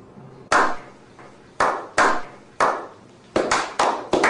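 Slow clap by a small group of men: single hand claps about a second apart, speeding up into quicker, overlapping claps near the end.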